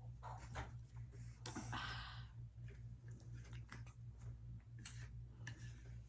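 Close-miked mouth sounds of someone chewing food: scattered soft clicks and smacks, with one longer breathy slurp-like sound about one and a half seconds in, over a steady low electrical hum.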